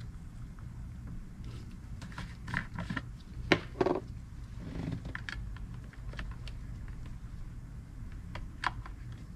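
Scattered light clicks and knocks of small objects being handled, loudest a few seconds in, over a steady low hum.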